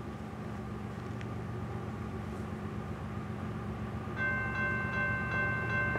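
Distant rumble of an approaching Union Pacific grain train's diesel locomotives. About four seconds in, the lead locomotive's air horn starts sounding a steady chord of several notes.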